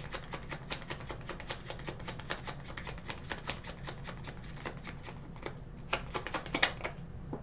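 A tarot deck shuffled by hand, the cards slapping together in a quick run of soft clicks. The clicks thin out about five seconds in, with a few last clusters before they stop near the end.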